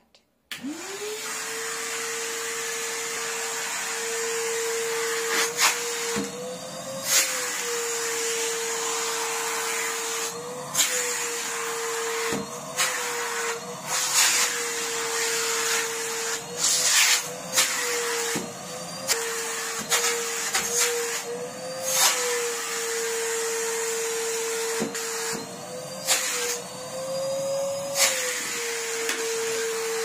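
Numatic Henry vacuum cleaner switched on about half a second in, its motor spinning up to a steady whine and then running on. Several times the pitch briefly rises and falls, and there are several sharp knocks along the way.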